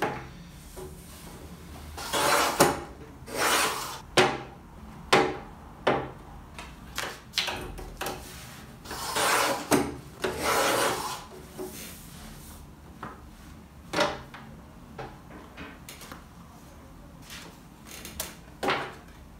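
Cutter head of a sliding paper trimmer scraping along its rail as it cuts notebook cover card, in several strokes, the longest a second or more near the middle. Between strokes, short sharp clicks and taps as card is set against the trimmer.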